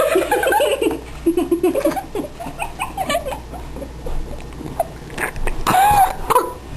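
A child's high-pitched wordless laughing and vocalizing in short wavering bursts, quieter for a couple of seconds midway and picking up again about five seconds in.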